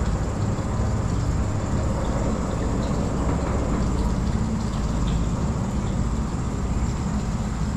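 A small boat's motor running steadily at slow trolling speed: a constant low drone with no change in pitch.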